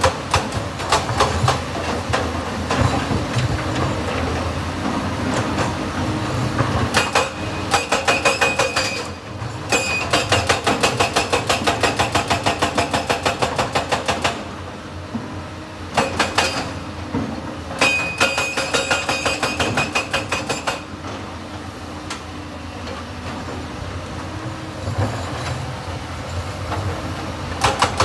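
Excavator at work with runs of fast, rhythmic metallic clanking, about six strikes a second, at times with a ringing metallic tone, broken by short pauses.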